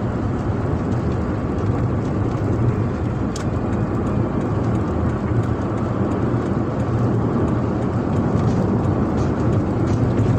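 Steady engine and tyre-on-road rumble of a car cruising on a highway, heard from inside the cabin.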